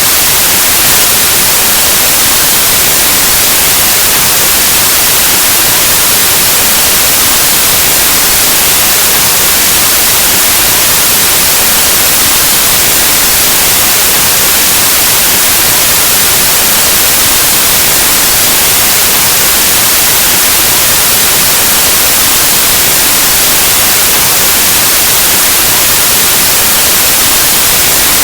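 Steady, loud white noise: an even hiss like the static of an analog TV or radio, unchanging throughout.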